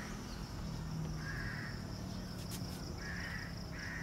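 Bird calling outdoors: short, harsh calls repeated about once a second, three or four in a row, over a steady high hiss.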